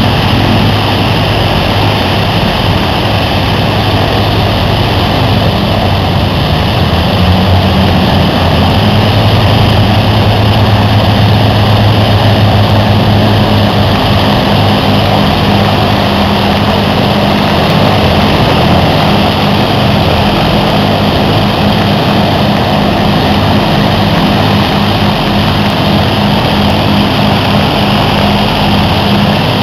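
The Avro Lancaster's four Rolls-Royce Merlin V12 piston engines running on the ground with propellers turning. The loud, steady engine note shifts slightly in pitch a few times as engine speed changes.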